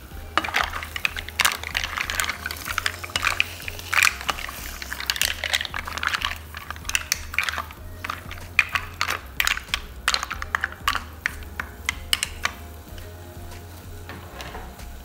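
Mussel shells clattering and clicking against each other and the pot as they are stirred. It is a rapid, irregular run of hard clicks that dies away near the end.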